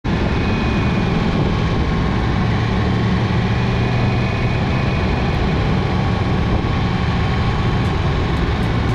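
Motorcycle engine running steadily while riding at an even pace, with wind rushing over the microphone.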